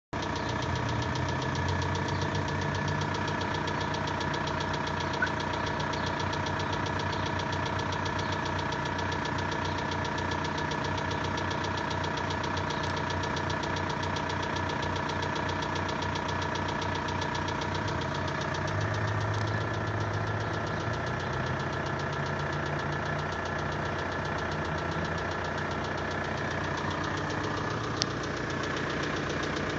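Volkswagen 1.9 TDI 66 kW four-cylinder diesel running cold at a steady speed, with a rhythmic knock from the pulley end near the valve cover, plus two isolated sharp clicks. The knock is worse the colder the engine and has not been cured by new hydraulic lifters or injectors.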